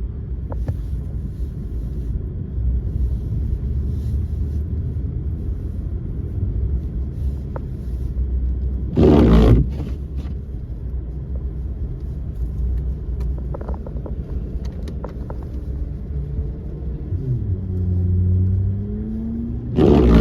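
Car driving, heard from inside the cabin: a steady low road and engine rumble. A loud thump comes about nine seconds in, the engine note shifts in pitch and settles near the end, and another thump comes at the very end.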